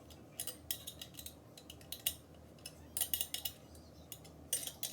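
Small steel hardware and hand tools clinking and rattling: irregular sharp metallic clicks as bolts, washers and nuts are handled while assembling a metal welding cart.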